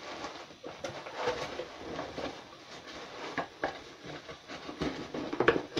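Rustling and small knocks of items and packaging being pushed back into a cardboard gift box, an irregular run of crinkles and taps.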